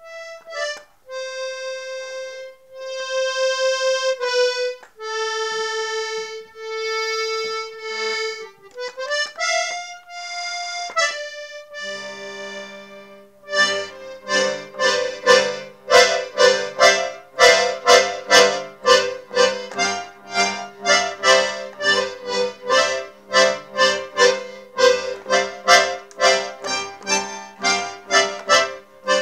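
Accordion playing: a slow melody of long held single notes, then, about halfway through, a quick rhythmic passage with bass notes and chords pulsing about twice a second.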